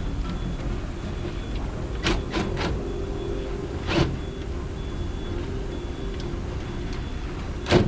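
A steady low rumble with a hum, broken by short sharp knocks: three about two seconds in, one around four seconds, and a louder one near the end.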